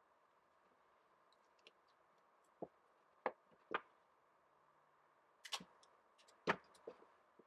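A handful of small clicks and taps from handling a roll of packing tape and a snap-off box knife while cutting pieces of tape, the sharpest about six and a half seconds in, over a faint steady hiss.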